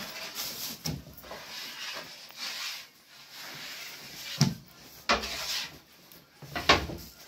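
Bread dough being handled on a wooden board: rubbing and shuffling, broken by a few sharp thuds as rounds of dough are slapped down, the loudest about four and a half seconds in and again near the end.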